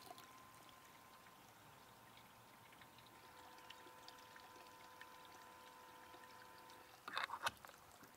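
Faint trickle of wort pouring into a mash tun during recirculation, over a faint steady hum. A brief clatter about seven seconds in.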